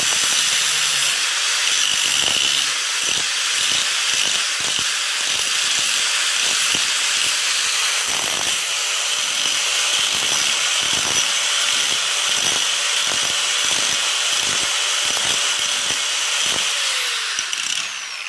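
Angle grinder with an abrasive disc grinding the broken tip of a twist drill bit clamped in a sharpening jig, regrinding its point to about 118–120 degrees: a steady high whine over a gritty grinding hiss. Near the end the grinder is switched off and spins down with a falling whine.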